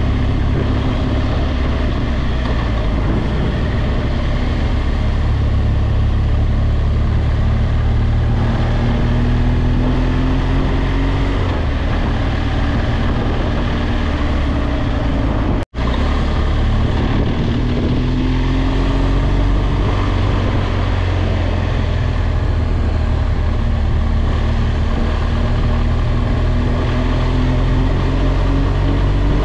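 BMW R1200GS boxer-twin engine running under way, over wind and road noise. It rises slowly in pitch twice as the bike accelerates, with a brief sudden dropout about halfway through.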